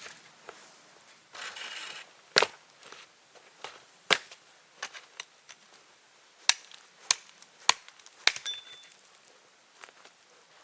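A series of sharp knocks or snaps, about seven, unevenly spaced, the loudest about two and a half and four seconds in, with a short rushing noise just before the first.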